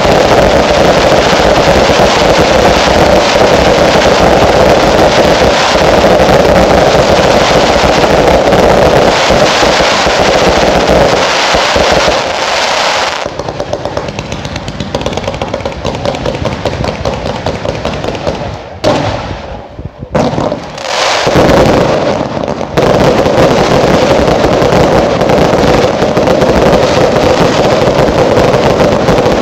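Finale barrage of consumer category 2 fireworks, cakes and T2 single shots, firing in rapid succession so that shots and bursts overlap into a continuous din. It thins out about halfway through and almost stops for a couple of seconds, then resumes at full density for the last quarter.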